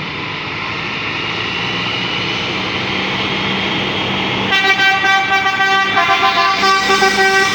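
Bus noise growing steadily louder, then about four and a half seconds in a telolet basuri musical horn starts playing several tones at once in quick pulses, changing notes a second or so later as it plays its tune.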